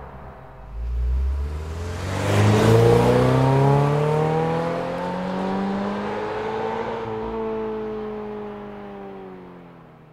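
Toyota GR86's 2.4-litre FA24 flat-four running through an HKS Legamax Premium cat-back exhaust, accelerating hard. The engine note climbs steeply in pitch for the first few seconds, then levels off and fades out near the end.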